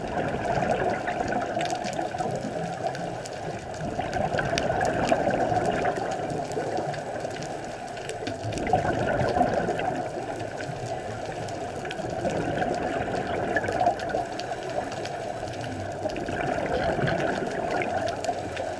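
Muffled underwater rushing heard through a camera's waterproof housing, swelling every few seconds with the bubbling of a scuba diver's exhaled breath.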